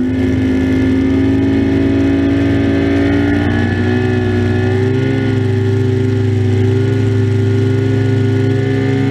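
Mercury 150 outboard motor running hard as the bass boat gets up on plane. The engine's pitch climbs a little over the first few seconds, then holds steady.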